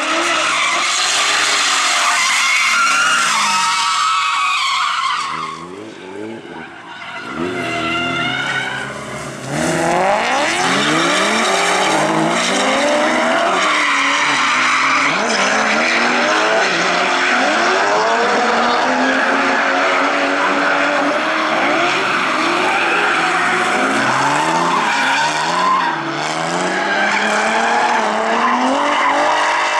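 BMW drift cars revving hard, their engine notes rising and falling as they slide, over a steady tyre squeal. It drops away for a few seconds about six seconds in, then comes back loud, with several engines overlapping as cars drift together.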